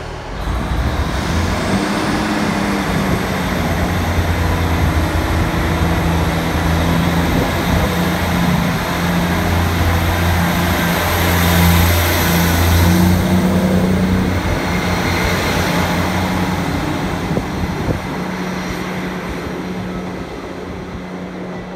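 Class 158 diesel multiple unit pulling away under power. Its diesel engines run loud and steady, with a high whistle that rises in the first couple of seconds. The sound is loudest as the train passes and fades as it moves off down the line.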